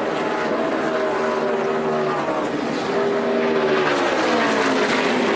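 NASCAR Nationwide stock cars' V8 engines at racing speed, two cars running together. The engine note sinks, swells again about three seconds in, then falls as they sweep past.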